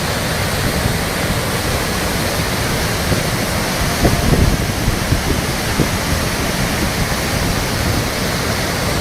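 Steady, loud rush of a flash flood's torrent of water.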